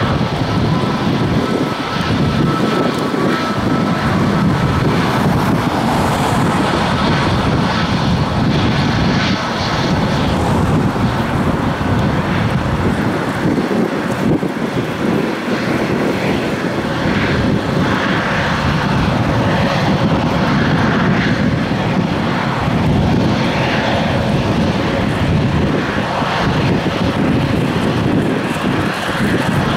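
Airbus A321neo's two Pratt & Whitney PW1100G geared turbofan engines at takeoff thrust, a loud steady jet noise through the takeoff roll and climb-out. A thin whine sits over it for the first few seconds, then fades.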